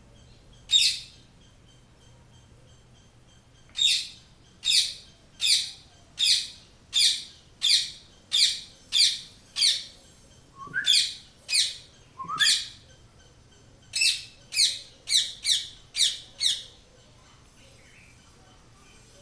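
Pet parrot calling: short, shrill squawks repeated in runs, about one a second and quickening toward the end, with brief pauses between the runs.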